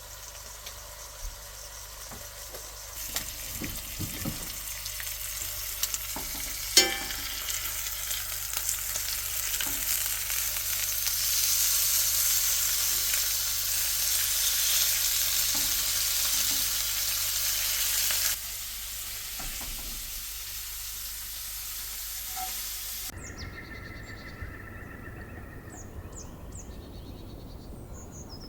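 Food frying in a pan, a steady sizzle that swells louder midway and eases off, with a sharp clink about seven seconds in. Near the end it cuts abruptly to a quieter outdoor background with birds chirping.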